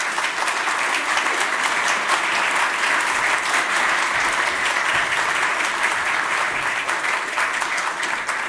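Audience applauding: a dense, steady clatter of many hands clapping that begins to die away near the end.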